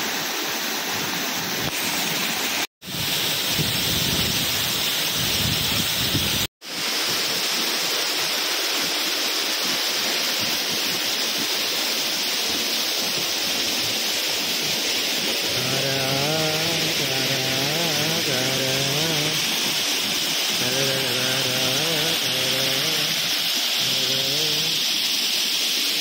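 Steady rush of a waterfall pouring over rock. The sound cuts out completely for an instant twice in the first seven seconds. From about halfway, a low voice sings a slow melody over the rushing water.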